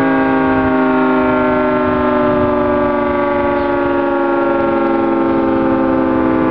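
Outdoor warning siren sounding during a test: one loud, continuous multi-note tone whose pitch slowly falls.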